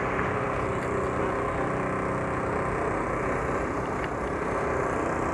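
A motor-driven engine running steadily, an even drone with a constant hum.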